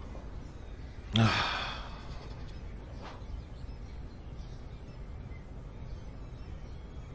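A man's heavy sigh about a second in, over steady low room tone.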